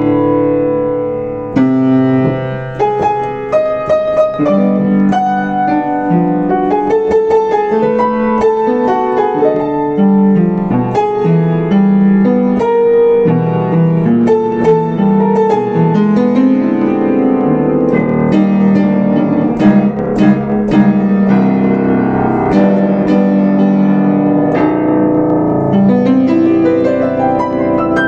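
Yamaha U5 upright piano played solo: a melody over sustained chords, with a quick rising run of notes near the end.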